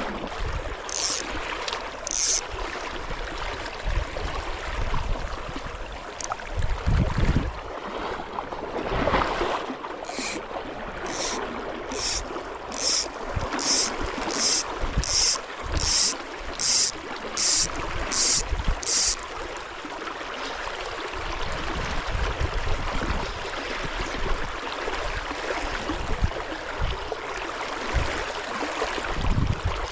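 A river's steady rush, with splashing and wind on the microphone as someone wades through knee-deep water. About a third of the way in comes a run of roughly ten short, high-pitched rasps, a little under a second apart.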